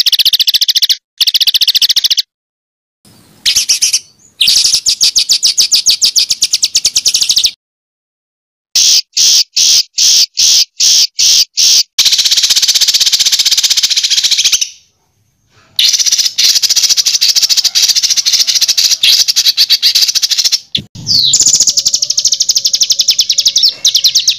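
Songbird 'tembakan' song: loud, very fast rattling strings of high notes in dense phrases of one to a few seconds, broken by abrupt silent gaps, with a run of short repeated bursts about a third of the way through.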